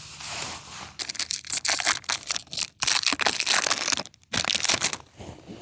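Foil wrapper of a Pokémon TCG booster pack being torn open and crinkled: a quick run of ripping, crackling strokes from about a second in, stopping briefly just after four seconds and ending near the end.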